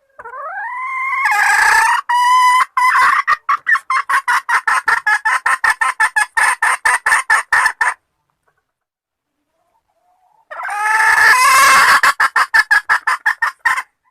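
A hen calling: a long, drawn-out rising note that runs into a fast string of short clucks, about six a second, then a pause and the same call again.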